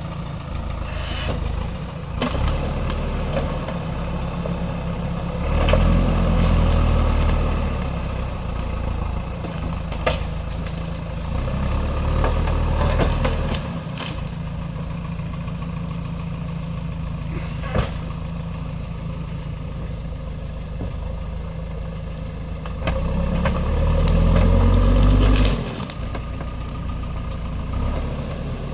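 JCB backhoe loader's diesel engine running, revving up three times as the hydraulics take load, with a few sharp knocks.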